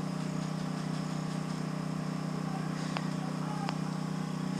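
A steady low mechanical hum with an even pitch, with two short sharp clicks about three seconds in.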